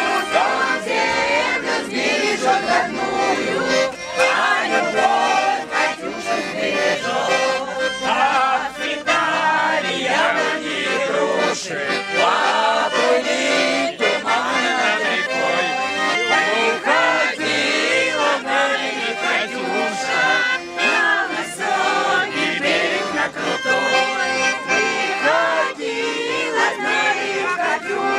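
Accordion playing a lively folk tune while a group of older voices sings along together.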